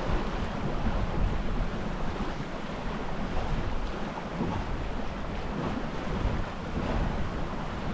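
Gusting wind buffeting the microphone over the steady wash of choppy water along the hull of a small sailboat under way.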